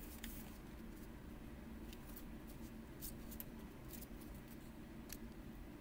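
Tarot cards being handled: a few faint, scattered clicks and ticks of card stock as cards are taken from the deck and laid down, over a low steady room hum.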